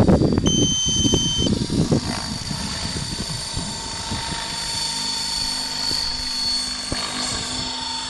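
Mikado Logo 800 Xxtreme radio-controlled helicopter flying overhead: a steady high whine from its electric motor and rotor. A rumbling noise fills the first two seconds, and a one-second beep sounds about half a second in.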